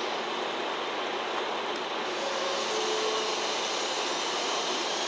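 Steady, even background noise in a rail yard, with no distinct events.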